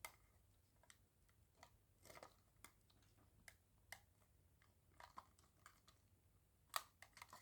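Faint, scattered clicks and taps of hard plastic being handled by hand: the plastic body of a Kyosho Mini-Z RC car being worked free from its glue tabs and chassis, with one sharper click near the end.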